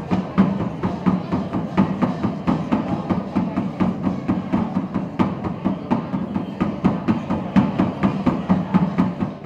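Traditional festival music carried by a drum beaten in a quick, steady rhythm of several strokes a second, over a sustained low tone.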